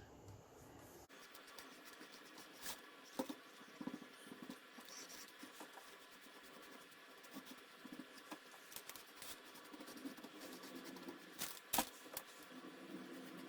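Foam brush dabbing and scraping paint onto a plastic crate: a faint, irregular scratchy patter, with a few sharp taps as the brush or crate knocks, the loudest near the end.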